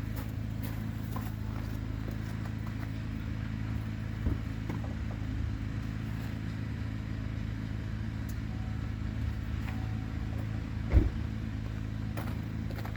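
Duramax turbo-diesel V8 of a Chevy 3500 pickup idling steadily, with two short knocks, about four seconds in and near the end.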